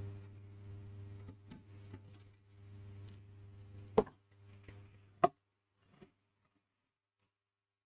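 Scattered light clicks and two sharp knocks of tools and metal casing parts being handled while a car radio is taken apart, over a steady low hum that stops about five seconds in.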